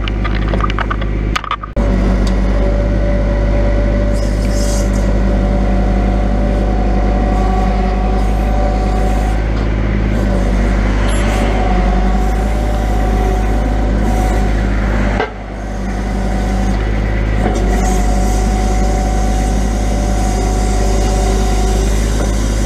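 Grapple truck's engine running under load, driving the hydraulic knuckle-boom loader as the boom unfolds and the grapple is swung over the box. Steady whining tones from the hydraulics shift and come and go as the controls are worked, over a constant low engine hum. The sound drops briefly twice, near the start and about fifteen seconds in.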